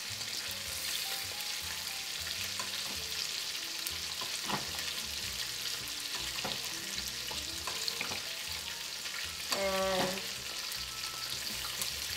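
Eggs frying in extra virgin olive oil in a small pan: a steady sizzle, with a few light clicks of a metal spoon against the pan as hot oil is scooped over the yolks. About ten seconds in, a brief vocal sound cuts in.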